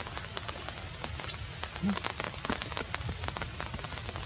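Rain pattering on forest leaves and branches: a dense, irregular patter of drop ticks over a low rumble, with one short low squeak about two seconds in.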